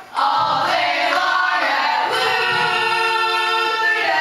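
Voices singing together, with shorter sung phrases and then a long held note about halfway through.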